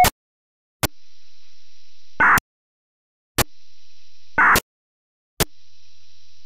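ABBREE AR-2520 Roger-beep data burst heard on a receiver, repeated over three short transmissions. Each opens with a click and about a second and a half of faint hiss. It ends in a short data burst as the mic is unkeyed, which sounds like some form of short-burst FSK, then another click as the squelch closes.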